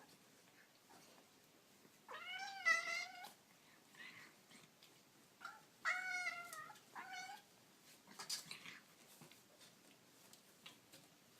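A kitten meowing in high, thin calls: one long meow about two seconds in, then a short one, a longer one and another short one close together around six to seven seconds.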